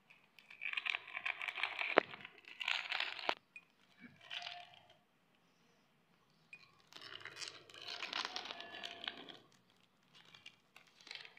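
Plastic wrappers of Cookania WayFar wafer packets crinkling in the hands as they are pulled from their cardboard box, in several bursts of crackling, with one sharp click about two seconds in.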